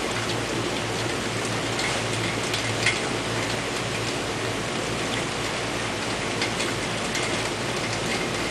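Steady rain falling, with a few sharper drops tapping now and then, the loudest about three seconds in.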